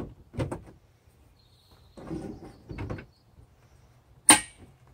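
Hard knocks and scraping from metal camper parts being handled at the front of a pop-up camper, with one sharp metallic clank about four seconds in.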